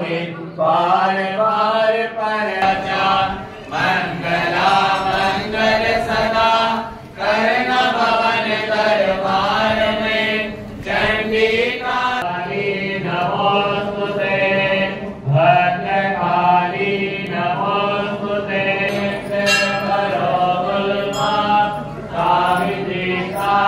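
Hindu devotional chanting: a voice sings a mantra in long phrases over a steady low drone, with short breaks between phrases.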